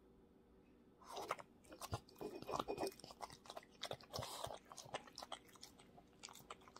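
Blue French bulldog chewing and smacking its lips on a bite of scrambled egg taken from the fingers: a run of short wet clicks and smacks that starts about a second in.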